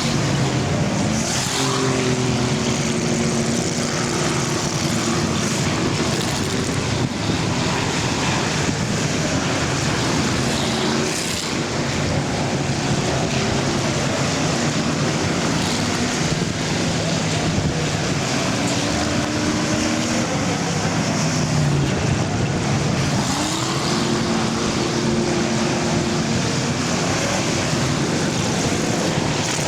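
Several full-size car engines running in an enduro race, their pitch rising and falling as cars accelerate and pass, over a steady rush of engine and tyre noise.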